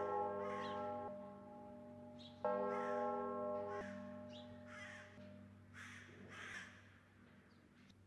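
A church bell's last strikes: one at the start and a louder one about two and a half seconds in, each ringing on with a hum that dies away over the next few seconds. Bird calls come several times in between.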